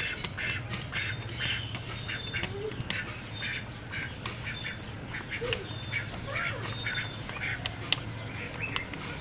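Birds calling in quick short squawks, several a second, over a low steady hum.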